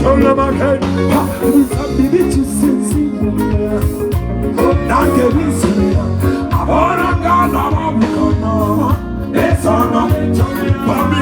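Live band music with guitar, bass and drums playing a steady upbeat groove, with singing coming in about halfway through.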